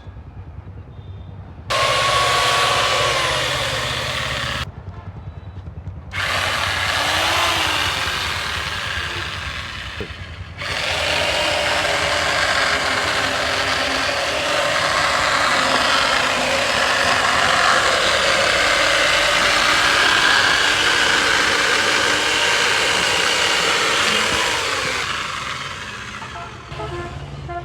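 A power tool or sawmill machine running loudly in several short clips joined by abrupt cuts, with a dense hiss and a few faint steady tones.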